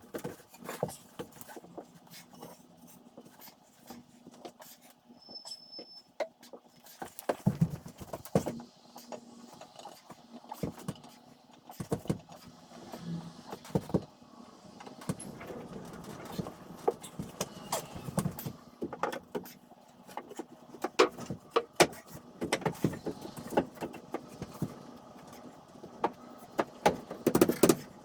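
Irregular knocks, clicks and clatter of hand work on wooden railing parts, busiest in the second half, with a faint steady hum underneath.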